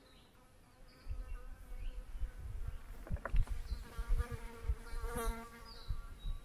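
A flying insect buzzing, its drone rising and fading for several seconds, with gusts of wind rumbling on the microphone and a short high bird chirp near the end.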